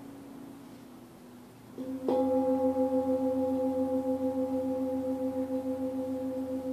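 Singing bowls: after a faint fading tone, bowls are struck about two seconds in and ring on in several steady, overlapping tones with a slow pulsing waver.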